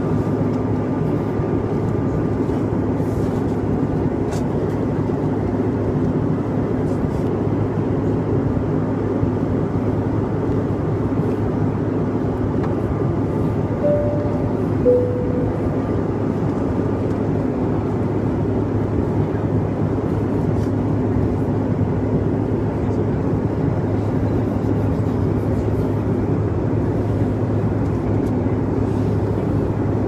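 Steady airliner cabin noise, an even rush of engine and air, with faint rustling and scratching of fingernails on a paper napkin. About halfway through, a two-note falling cabin chime sounds once.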